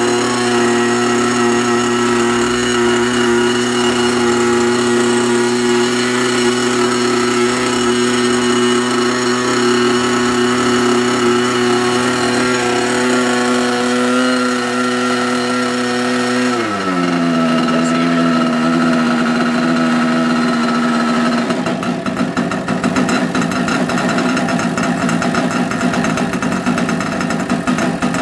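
Small model-airplane engine of an R/C Cessna 182 running at a steady speed. Its pitch drops a little about two-thirds of the way through, and for the last several seconds it runs rougher, with a fast crackle.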